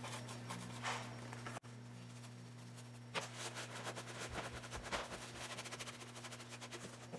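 A paper towel rubbing over a textured EVA-foam dragon egg, wiping off black wash: a quick rasping scrub that picks up about three seconds in, over a steady low hum.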